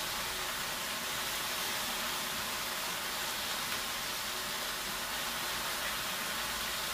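Vegetables sizzling in an enamelled cast-iron casserole on the hob: a steady, even hiss.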